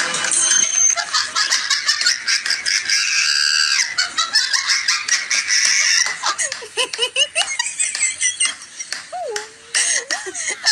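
People laughing, with clicks and knocks throughout and a few short squeaky pitch glides in the second half.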